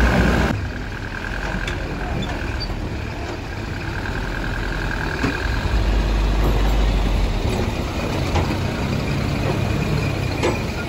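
Diesel engine of a light dump truck loaded with quarry sand, pulling away and driving up close. There is a short hiss at the start, and the engine gets louder about six seconds in.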